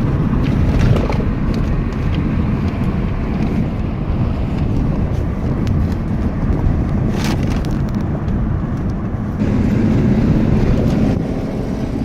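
Road and engine noise inside a moving car: a steady low rumble that grows louder for a couple of seconds around nine and a half seconds in.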